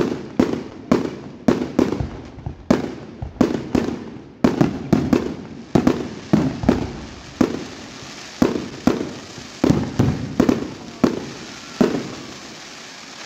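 Aerial fireworks bursting in rapid succession, about two sharp bangs a second, each fading out in a short tail. The bangs thin out and stop about twelve seconds in, leaving a fainter hiss.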